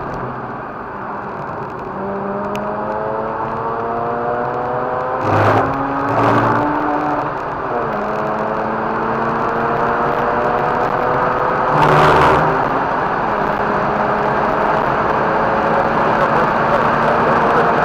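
Mazda RX-8's rotary engine pulling hard under acceleration on track, its pitch climbing steadily through the revs. The climb breaks with short louder bursts about five seconds in and again about twelve seconds in, as gears change, then rises again, over a constant rush of wind and tyre noise.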